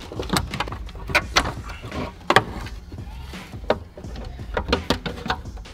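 Carbon-fibre instrument cluster surround being pried loose and lifted off a car dashboard: a string of sharp, irregular clicks and knocks as the panel is worked free.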